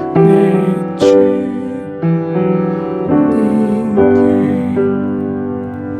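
Piano playing a slow hymn accompaniment, with a new chord struck about once a second.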